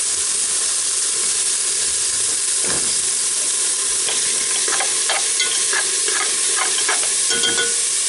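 A sofrito of onion, garlic, ají paste and strips of bell pepper sizzling steadily in hot oil in a pot. A spoon stirs it and scrapes against the pot many times, mostly in the second half.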